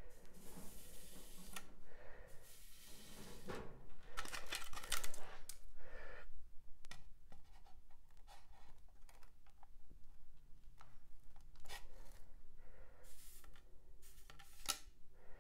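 Blocks of rigid Styrodur foam being handled and fitted together: scratchy rubbing and scraping of foam on foam, with several light knocks.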